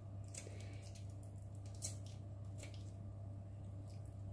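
Kitchen scissors snipping raw chicken wing meat away from the bone while deboning: a few quiet, separate snips.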